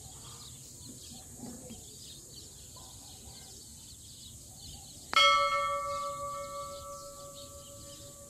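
A single electronic bell-like chime about five seconds in, sounding once and ringing down over about three and a half seconds, over a faint steady background hiss.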